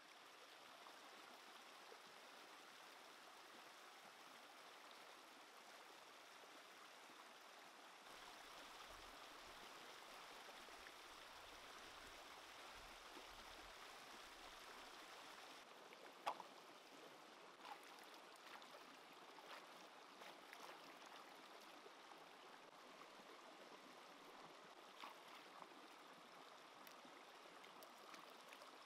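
Faint, steady sound of a shallow stream running over rocks. From about halfway through come small splashes and drips of hands washing vegetables in the water, the sharpest one just past the middle.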